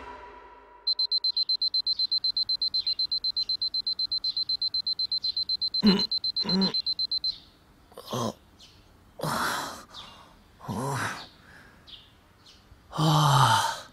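Electronic alarm clock beeping rapidly in a single high tone, about seven beeps a second, stopping about seven seconds in. It is followed by a man's short groans and sighs, the last one falling in pitch, as someone wakes from sleep.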